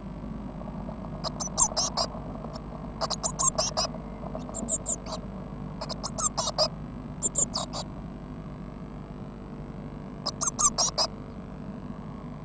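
Blue tit chicks near fledging calling in a nest box: clusters of short, high-pitched cheeps every second or two, over a steady low hum.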